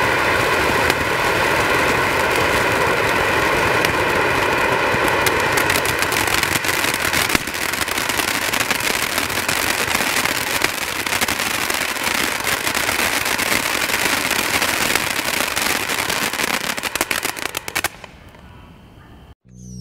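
Black Cat Neon Lights 500-gram fan fountain firework burning: a loud, steady spraying hiss laced with dense crackling that thickens after about six seconds. About two seconds before the end it sputters out and falls silent as the fountain is spent.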